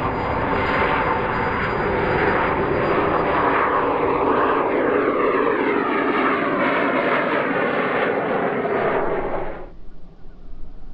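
Turbine engine of a model Gloster Javelin jet running at take-off power: a loud, steady rushing hiss with a thin high whine, its tone sweeping down as the jet passes. The sound drops away abruptly near the end.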